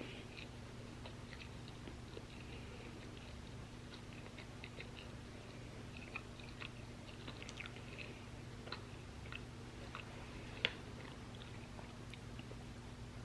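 Close-miked chewing of crunchy waffle fries: scattered small crunches and wet mouth clicks, with one sharper crunch about ten and a half seconds in. A faint steady low hum runs underneath.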